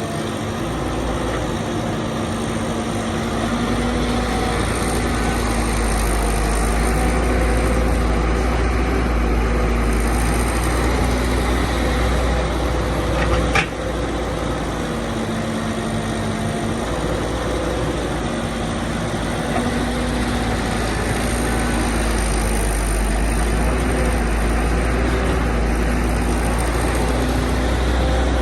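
Excavator engine running steadily with a low rumble, with a single sharp knock about halfway through.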